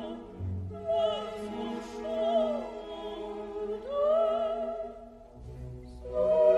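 Operatic classical music: a solo voice singing long phrases with vibrato over an orchestral accompaniment. It swells louder near the end.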